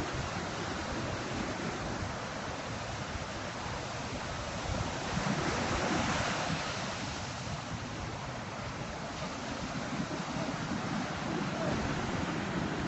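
Sea waves washing steadily, with wind on the microphone; the wash swells a little around the middle.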